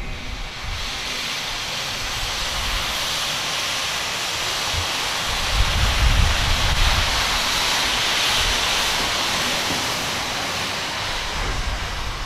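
Steam hissing steadily from the DB class 23 steam locomotive 23 042: one long continuous hiss that starts about a second in, swells in the middle and eases near the end, with a low rumble underneath.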